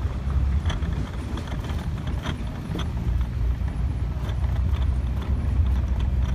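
A vehicle driving along a dirt road: a steady low engine and tyre rumble, with scattered small knocks and clicks.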